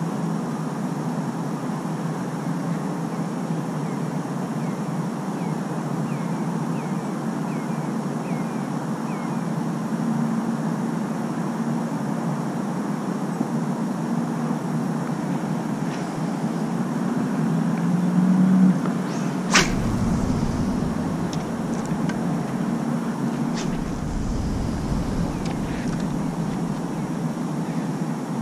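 Steady outdoor background noise, a low hum under a hiss, with a single sharp click about two-thirds through followed by brief low rumbling.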